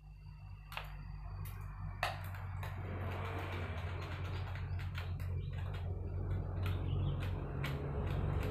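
Scattered sharp clicks and light rattles of wire leads and clips being handled at a small transformer as its connections are moved. A steady low hum runs underneath and slowly grows louder.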